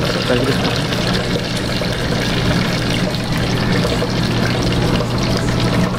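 Oil bubbling and hissing steadily in a tabletop deep fryer, with a constant low hum beneath it.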